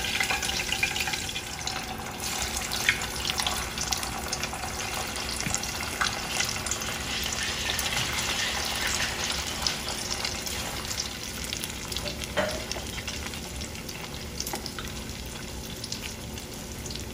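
Cornstarch-and-egg-battered chicken pieces frying in hot oil in a stainless steel pan: a steady sizzle, with a few sharp clicks scattered through it.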